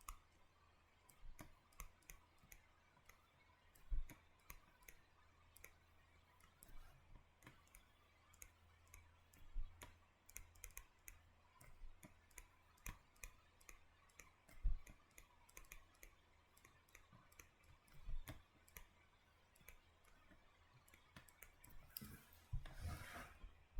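Faint, irregular clicks and taps of a writing tool as notes are written out by hand, with a brief rustle near the end.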